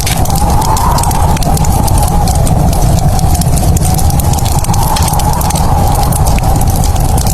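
Wood fire in a fireplace crackling, with many small rapid pops over a continuous low rumble and a steady wavering tone.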